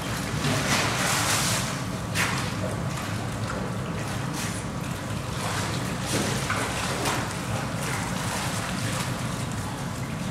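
Polar bears swimming in a pool: water splashing and sloshing in several surges over a steady low rumble.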